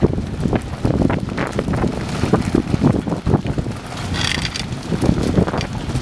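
Large fire burning, a steady low rumble with frequent crackles and pops, and wind buffeting the microphone. A brief hiss rises about four seconds in.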